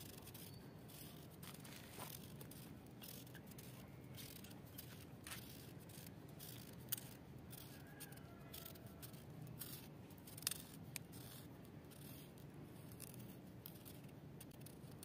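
Kitchen knife peeling a raw turnip: faint, irregular scraping and snicking of the blade through the skin, with a few sharper clicks.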